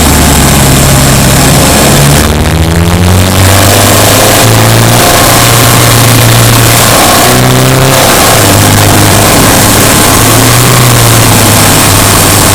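Subaru Impreza Sport's flat-four engine pulling under way, its pitch changing several times, with the engine easing briefly about two seconds in, around four and a half seconds and near eight seconds, under loud, constant road and wind noise.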